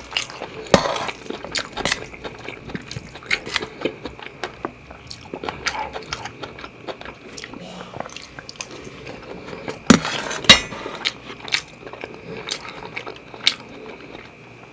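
Close-miked chewing and biting of seafood fried rice with shrimp and squid: wet mouth sounds and scattered sharp clicks, with a couple of louder clicks about ten seconds in. A faint steady high whine runs underneath.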